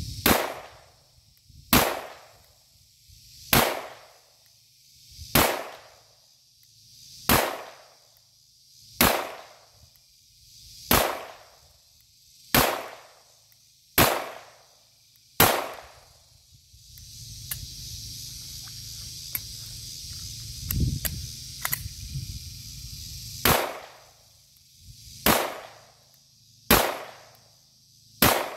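Glock 19 9mm pistol fired slowly and evenly, one shot every second and a half to two seconds, each with a short echo. Ten shots, then a pause of about seven seconds holding only faint noise and small clicks, then four more shots.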